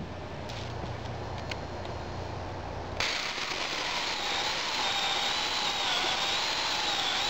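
Black & Decker CCS818 18-volt cordless chainsaw running and cutting through a small log, starting abruptly about three seconds in. Its electric motor whine wavers, dipping in pitch and recovering as the chain bites into the wood under load.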